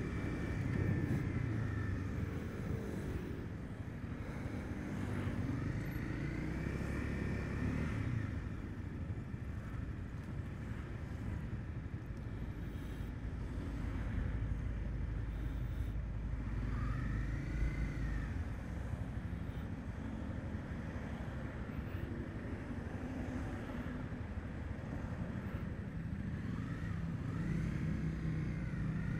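Honda CB300F motorcycle's single-cylinder engine running on the move, its pitch rising and falling several times as it speeds up and eases off, over a steady low rumble of road noise.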